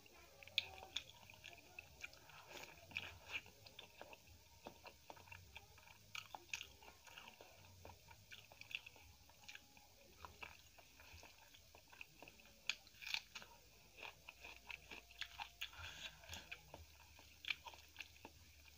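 Close-up eating sounds: chewing and crunching of hand-fed mouthfuls of rice with crisp fried bits mixed in, with many short crisp crackles and mouth clicks at irregular intervals.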